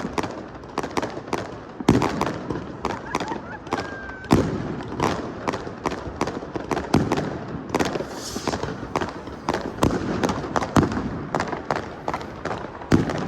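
Fireworks exploding continuously: a dense run of cracks and pops, with heavier booms every few seconds.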